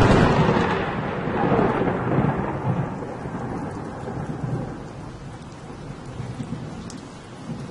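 Thunderstorm sound effect: a sudden thunderclap at the start that rolls and fades over about three seconds, over a steady hiss of heavy rain.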